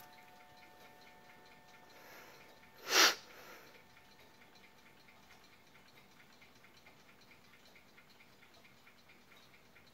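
Ship's clock by N.V. Observator, Rotterdam, ticking quickly and steadily. About three seconds in, one short, loud burst of breath noise, a sniff close to the microphone, drowns it out for a moment.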